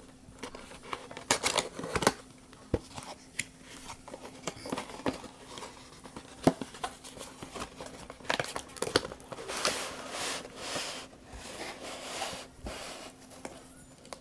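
Plastic toy train and track parts being handled: irregular sharp clicks and short crinkly rustles, with a faint steady hum underneath.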